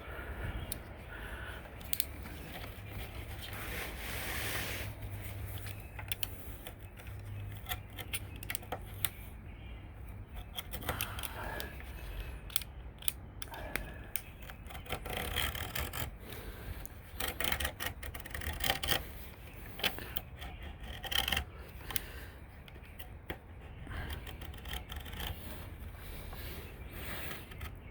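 Hand work on an aluminium screen door frame and heavy pet screen mesh: irregular scraping and rubbing with scattered sharp clicks and taps, over a steady low hum.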